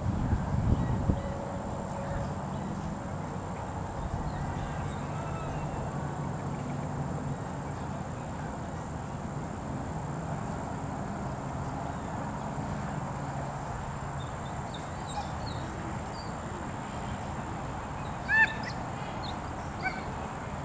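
Steady open-air background noise with a few knocks in the first second, then one short honk-like squeak about eighteen seconds in and a fainter one just before the end.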